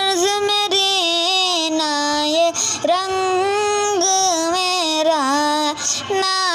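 A high voice singing a naat, an Urdu devotional song, in long held notes that bend up and down between short breaths.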